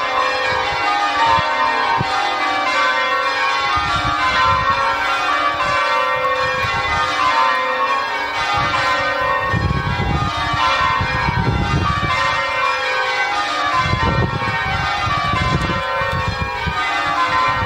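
Gloucester Cathedral's ring of church bells pealing, the bells struck one after another in repeating descending sequences, in the English change-ringing style. A low rumble comes and goes under the bells about halfway through and again later.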